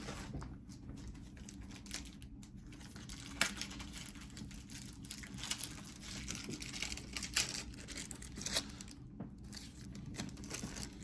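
Crinkling and tearing of a trading-card booster pack's foil wrapper as it is handled and opened, with irregular sharp crackles.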